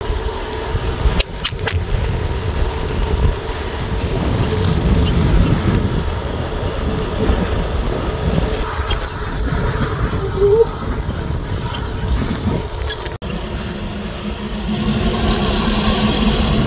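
Wind and road noise from travelling along a highway, dense and low-pitched. About 13 seconds in it cuts sharply to a steadier low hum.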